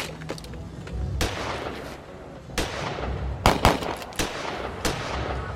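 A series of about six gunshots at irregular intervals, each followed by a ringing echo, with the loudest two in quick succession about three and a half seconds in. A steady low rumble runs underneath.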